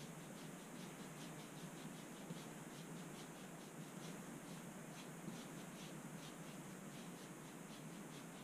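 Faint, rhythmic scratching of a paintbrush scrubbing acrylic paint onto a canvas, about four to five strokes a second, over a steady hiss.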